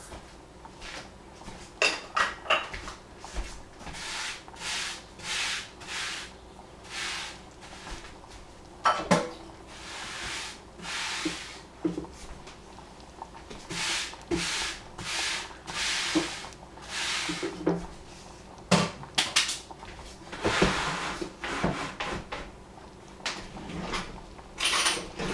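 Holes being poked into puff pastry, a run of short scratchy strokes about one every half second to second, with sharp clicks now and then.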